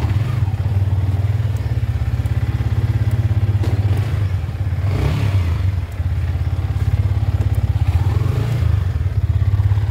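Yamaha R15 V3 motorcycle's single-cylinder engine running at low revs with a steady, pulsing rumble as the bike pulls away and rides slowly.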